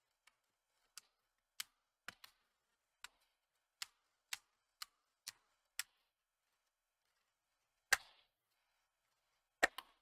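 Plastic snap clips of an HP TPN-C129 laptop's keyboard deck clicking into the bottom case as the case is pressed shut along its edges: a series of sharp single clicks about every half second, then after a pause a louder click, and two close together near the end.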